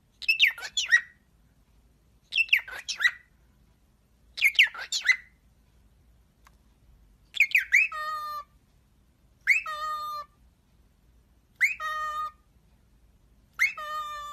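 Cockatiel whistling to its own reflection in a mirror: seven short phrases about two seconds apart. The first three are quick chirpy sweeps; from about halfway on, each phrase ends in a held, buzzy note.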